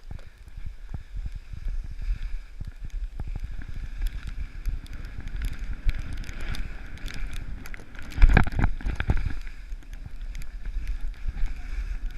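Wind buffeting the microphone while a rider slides down snow, edges hissing and scraping across the surface with small knocks throughout. A louder scrape comes about eight seconds in.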